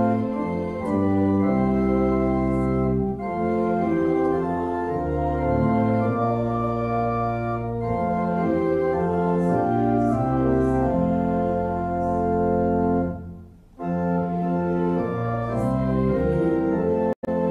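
Church pipe organ playing a hymn in sustained, changing chords, with a short break between phrases about three-quarters of the way through before the playing resumes.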